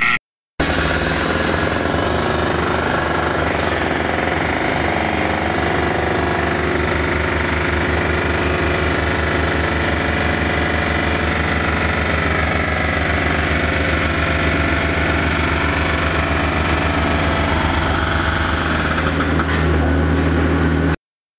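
A motor-driven machine running steadily with a rapid, even pulse, starting just after a brief sound at the very start and cutting off abruptly near the end.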